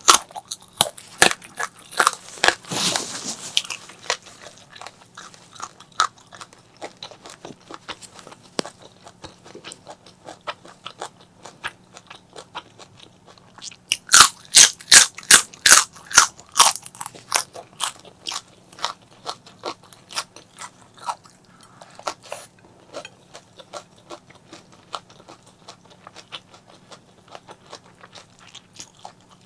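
Close-miked eating: crunching bites and chewing of crisp food. A run of loud crunches comes about two seconds in and another about halfway through, with quieter chewing clicks in between.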